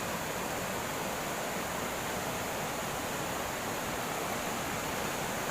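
Steady rush of fast-flowing river water over rocks in an upland stream.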